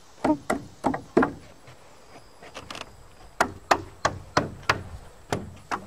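Hammer striking a chisel into a wooden rafter, knocking out a notch: four sharp knocks about three a second, a pause of about two seconds, then about seven more.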